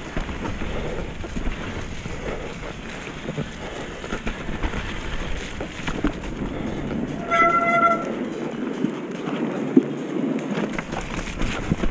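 Mountain bike rolling fast over a wet, muddy trail and onto wooden boardwalk planks: tyre noise with the bike rattling and knocking over bumps. About seven seconds in there is one short, high squeal.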